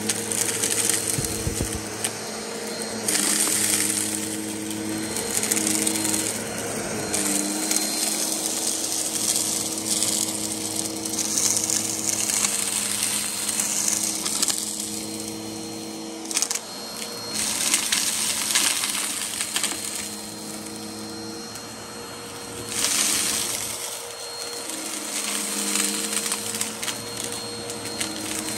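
Vacuum cleaner running with a steady motor hum, with repeated surges of crackling and rattling as it sucks up dirt and grit.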